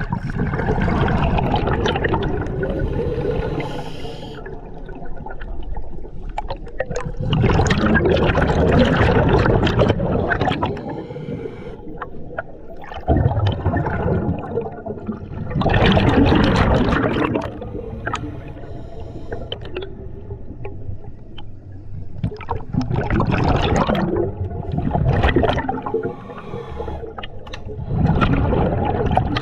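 Scuba diver breathing through a regulator, heard underwater: exhaled air bubbles gurgle and rumble in bursts every few seconds, with quieter breathing hiss between them.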